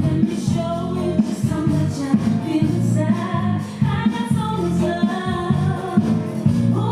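Music with singing: voices holding sustained notes over a steady bass line.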